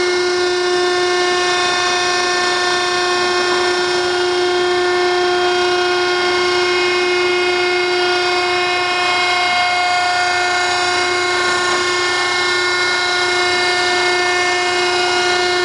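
Hydraulic power unit of a REC7242 TB tire baler running under load as the ram compresses a load of tires: a loud, steady whine at one fixed pitch.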